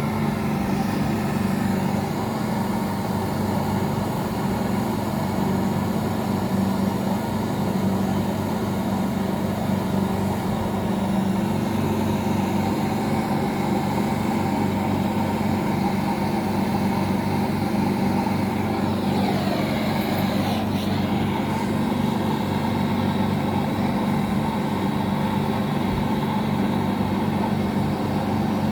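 Steady mechanical hum of running air-conditioning machinery, with a strong low drone, and a brief falling whine about two-thirds of the way through.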